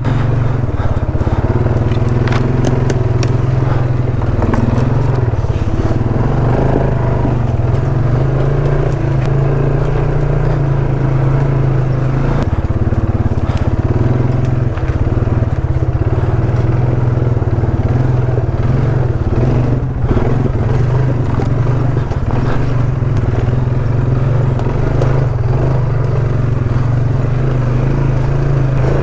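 ATV engine running steadily as the quad is ridden along a rough trail, with scattered clicks, scrapes and crackles from the machine working over the ground.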